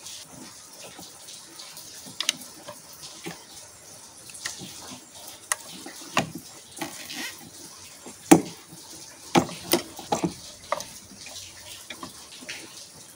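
Scattered clicks and light knocks of hand tools and small hose fittings on a diesel engine's injectors, as the fuel return hoses are worked loose; the loudest knock comes about eight seconds in, followed by a quick cluster of clicks.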